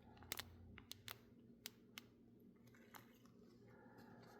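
Near silence with a few faint, scattered clicks and rustles of trading cards and plastic card sleeves being handled.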